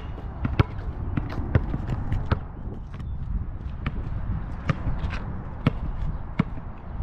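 A basketball being dribbled on an outdoor asphalt court: irregular sharp bounces, some about half a second apart, some louder than others, over a steady low rumble.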